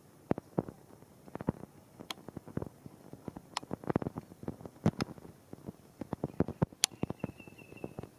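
Rain dripping: separate drops landing at irregular intervals, a few each second, over a faint hiss rather than a steady downpour.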